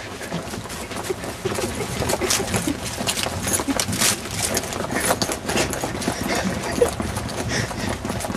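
Footsteps running across grass, a dense run of irregular thuds mixed with rustling from the handheld camera.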